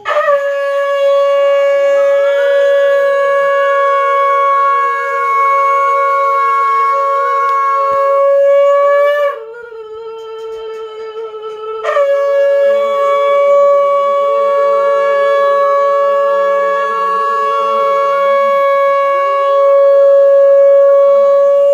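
Conch shell (shankha) blown in two long, steady blasts on a single note with overtones. The first lasts about nine seconds; after a pause of about two and a half seconds, the second is held to the end. It is a ritual conch call sounded during a Hindu ceremony.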